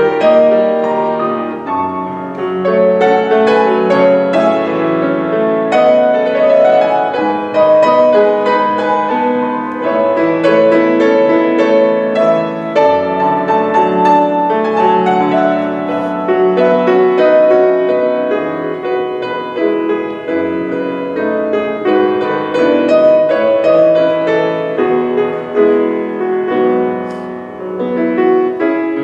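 Solo grand piano played in a continuous flowing passage of many notes, without a break.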